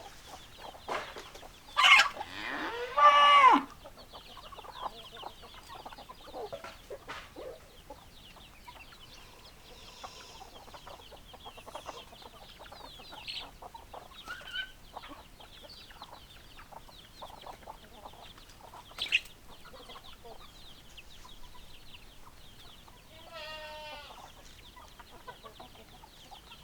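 Chickens clucking and calling, with one loud drawn-out call about two seconds in and a shorter wavering call near the end, over a steady chatter of faint high chirps.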